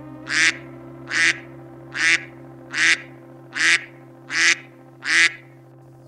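A duck quacking in an even series, seven short quacks about one every 0.8 seconds, over a faint steady hum.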